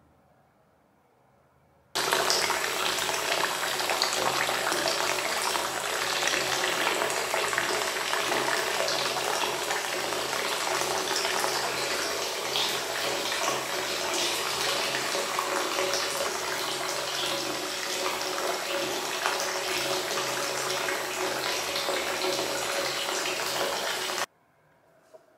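Water pouring from a brass tub spout into a freestanding bathtub as it fills: a steady rush that starts abruptly about two seconds in and cuts off abruptly near the end.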